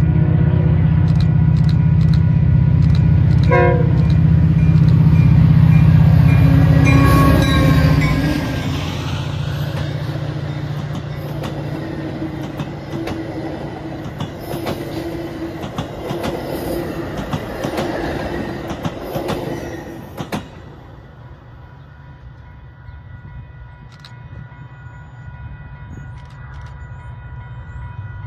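Metra diesel commuter train passing: the locomotive's engine runs loud for the first eight seconds, with a short horn sounding about four seconds in. The bilevel passenger cars then clatter over the rail joints until the sound drops off suddenly about twenty seconds in as the train clears. The crossing bell rings steadily throughout.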